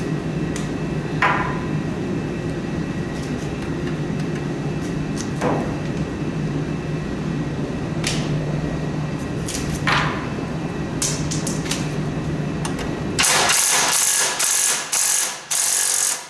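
A steady low hum runs underneath a few light metallic clicks and taps. Near the end, several loud hissing bursts in quick succession: an aerosol can of PB Blaster penetrating oil being sprayed onto a seized head bolt.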